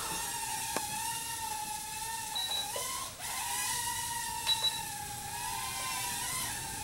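Blade Pico QX nano quadcopter's tiny brushed motors and propellers whining in flight, the pitch wavering up and down as the throttle and attitude change. A couple of short clicks sound over it, one about a second in and one past the middle.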